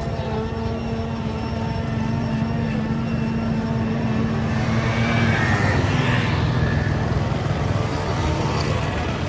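A motor engine running steadily, growing a little louder around the middle.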